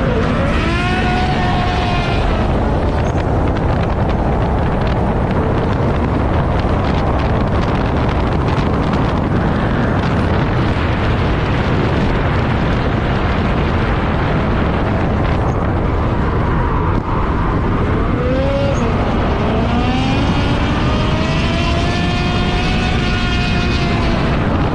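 Drift cars' engines revving hard with wind rushing over the microphone in an open-top Mazda MX-5, the engine pitch rising and falling near the start and again through the last third.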